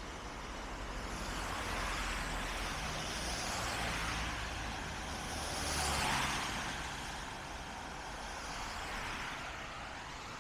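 Road traffic on wet streets: vehicles pass with a hiss of tyres on wet asphalt over a low engine hum, swelling and fading in turn, the loudest passing about six seconds in.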